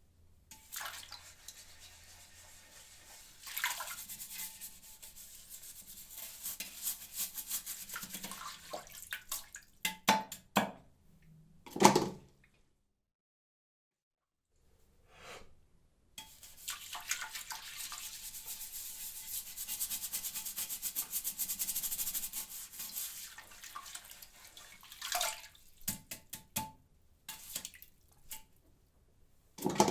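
Toilet brush scrubbing inside a toilet bowl with water: two separate takes of scratchy, rubbing strokes. Each take ends with a few sharp knocks.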